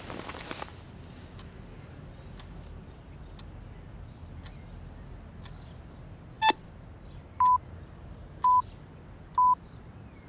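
Alarm clock ticking about once a second, then a sharp click about six and a half seconds in, followed by short beeps at one steady pitch, once a second, three times. A brief rustle near the start.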